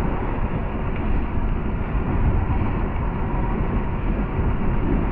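Steady rush of wind and road noise on the microphone of a moving rider, heaviest in the low end.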